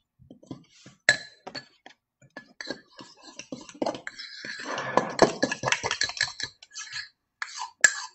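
Metal spoon clinking and scraping against a small ceramic bowl while stirring thick, slightly gooey almond-flour and egg batter. Irregular taps throughout, with a few seconds of denser scraping a little past the middle.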